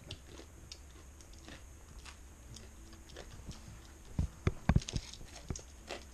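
A person chewing and biting fried fish, faint at first, with a cluster of sharp clicks and crunches about four seconds in.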